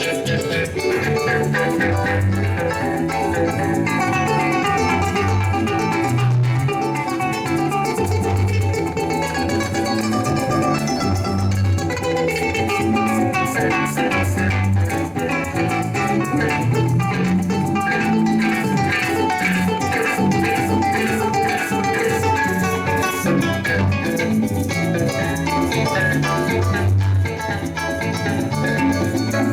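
Venezuelan joropo trio of cuatro, harp and maracas playing: strummed cuatro and harp melody over a pulsing harp bass, with the maracas shaking steadily.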